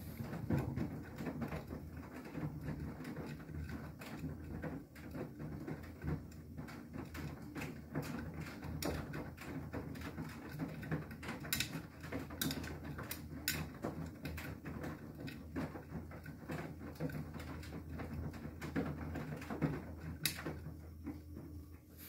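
Beko WTK104121W front-loading washing machine tumbling a wet load in its wash phase: a steady low motor hum with irregular light taps and clicks as the laundry turns in the drum. The load has soaked up nearly all the water, so the drum is running with very little free water.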